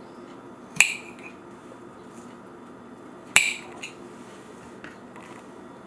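Two sharp clinks of kitchenware, about two and a half seconds apart, each with a brief ring.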